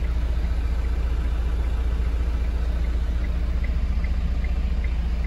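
Light delivery truck's engine running steadily while driving, a low rumble heard from inside the cab, with a faint regular ticking about two and a half times a second.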